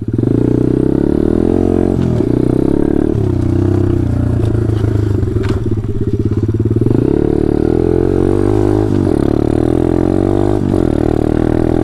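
Taotao DB17 125cc pit bike's single-cylinder four-stroke engine running under way. The revs ease off slightly about three seconds in and pick up again near seven seconds, with a few brief knocks.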